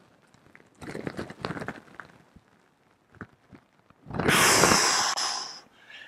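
A man breathing hard during a slow stretch: a softer breath about a second in, then one long forceful exhale about four seconds in, lasting about a second and a half, as his arms come back down from overhead.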